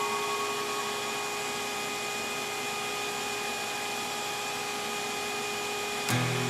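Vacuum cleaner running steadily, an even rushing noise with a faint steady whine. Guitar music comes in near the end.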